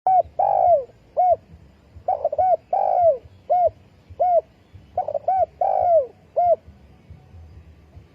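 Spotted dove cooing: three repeated phrases. Each is a quick short note or two, then one longer coo that falls in pitch, then one or two short coos.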